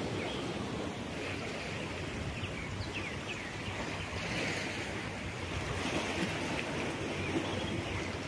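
Steady sea surf washing on the shore, with wind on the microphone.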